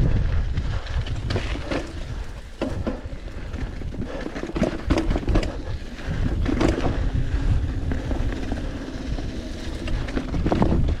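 Mountain bike riding a rocky trail: tyres crunching and the bike rattling and knocking over bumps, with wind rumbling on the microphone.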